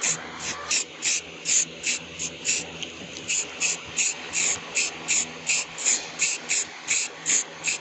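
Spray paint hissing out in short, rapid bursts, about three a second, as a model car body is painted white, over a faint low hum.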